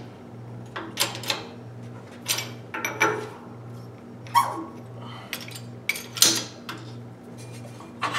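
Steel parts clinking and knocking as an upper control arm, its cross shaft and an angle-iron support are shifted by hand into place in a shop press, with about ten separate clanks spread through.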